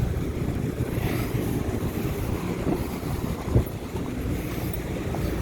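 Steady low drone of rooftop HVAC units running, with wind rumbling on the microphone and a single sharp knock about three and a half seconds in.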